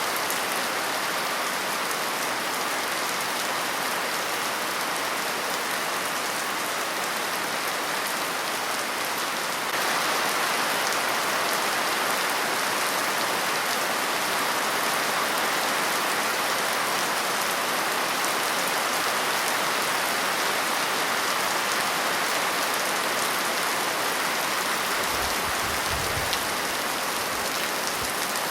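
Steady rain falling, a continuous hiss of drops. It grows a little louder about ten seconds in, and a brief low rumble comes near the end.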